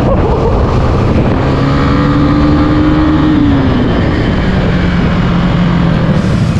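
Small motorcycle engine running while riding, its pitch rising slightly and then dropping about three and a half seconds in as the throttle is eased off, then running on at a lower pitch.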